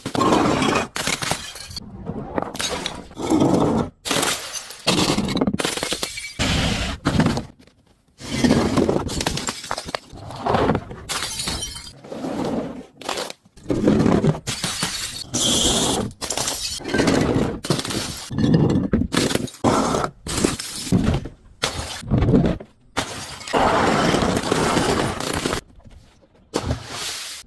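Glass bottles breaking and being crushed: repeated shattering and crunching of glass in bursts, with short pauses between them.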